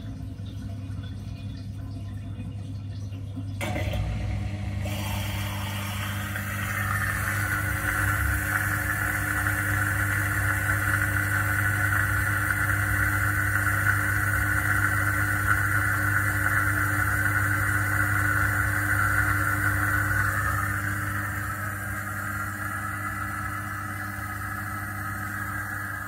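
Miele G7392SCVi dishwasher's pump running to pump away the water emptied from the heat accumulator, which the owner takes to be the main pump. It hums steadily and steps up in level about four seconds in. About six seconds in it is joined by a louder, higher whirr, which eases off about twenty seconds in.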